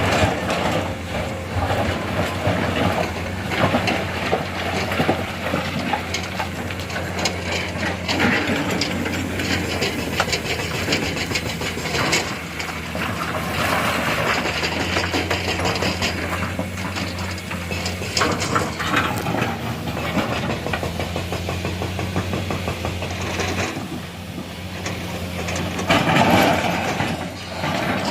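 Komatsu PC210 excavator's diesel engine running steadily, with repeated clanks and clatter of rock and metal over it, and a louder rush of noise near the end.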